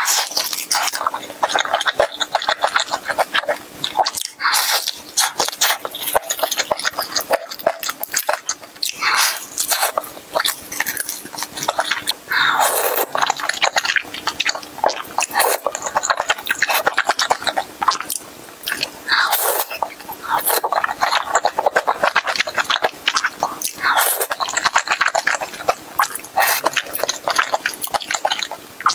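Close-miked eating: crackly crunching and chewing of crisp fried chicken crust, with several longer wet slurps of thick sauced noodles.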